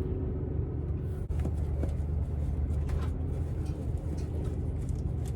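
Steady low mechanical hum, like an engine running, with a few light clicks and knocks from handling parts.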